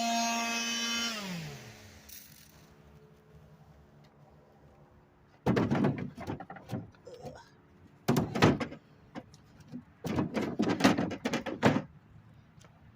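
Electric sander running with a steady whine, switched off about a second in and winding down in pitch as the pad slows. After a few seconds of quiet, three bursts of rough scraping and knocking.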